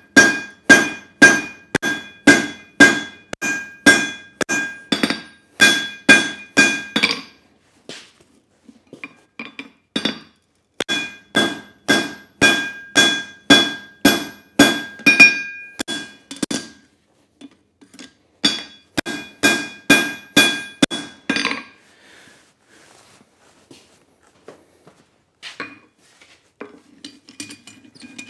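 Hand hammer striking red-hot leaf-spring steel on an anvil, forging an offset shoulder into the bar: steady blows about two a second in three runs with short pauses between, each blow followed by a clear ringing from the anvil. Near the end only a few lighter scattered taps.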